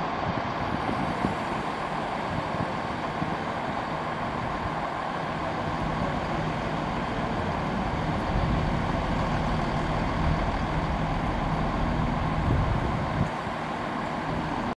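Steady motor-vehicle noise: an even rush with a faint low engine hum underneath.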